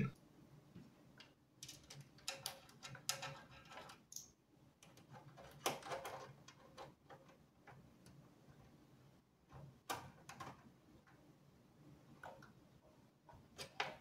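Faint, irregular small clicks and light knocks from hands fitting serial port connector cables and their slot bracket into an open PC case.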